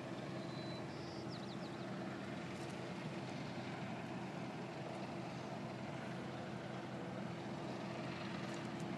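Steady engine hum holding one low drone without change, over an even outdoor noise.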